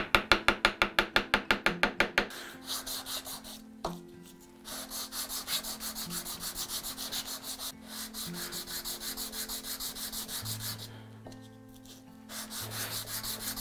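A wooden mallet taps a carving gouge in quick, even strikes into the end of a walnut octagon blank for about the first two seconds. After that the walnut piece is rubbed back and forth by hand on a sheet of sandpaper on the bench, in steady strokes with a short pause near the end.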